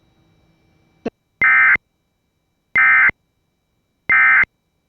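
Emergency Alert System end-of-message signal: three identical short, buzzy digital data bursts about 1.3 seconds apart, marking the end of the alert. A brief click comes just before the first burst.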